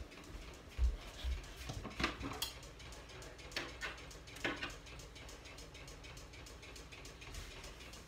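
Footsteps and phone-handling noise as the camera is carried around: a couple of dull thumps about a second in, then scattered light clicks and knocks, then a faint steady hum.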